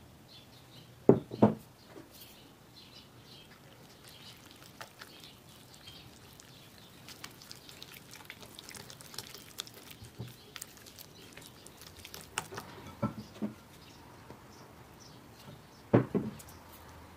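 A silicone spatula stirring flour and water into dough in a ceramic bowl, with soft scraping and small clicks against the bowl. A few sharp knocks stand out: two close together about a second in, and more near the end.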